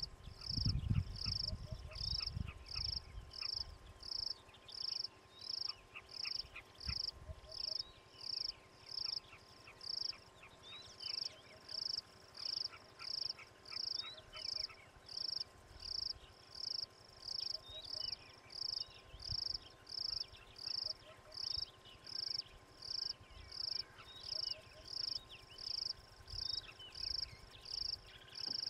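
An insect chirping steadily in the grass: one high-pitched pulse about twice a second. Faint bird twittering sits behind it, and a low rumble comes through in the first few seconds.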